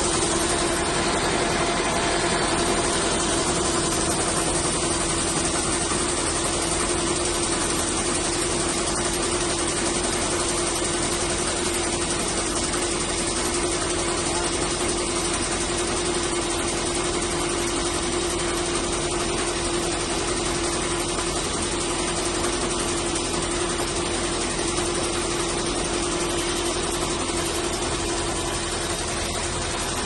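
Wishope corn combine harvester running steadily while it unloads shelled corn through its auger spout: an even mechanical drone with one constant hum.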